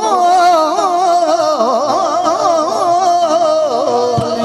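A man singing one long, held note in Punjabi Sufi-folk style, the pitch wavering and turning in ornamented runs over a steady instrumental drone. The note falls and ends near the end.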